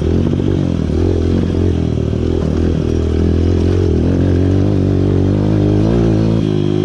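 Motorcycle engine running as the bike rides over a dirt trail. Its pitch rises with the throttle from about four seconds in, then drops back near the end.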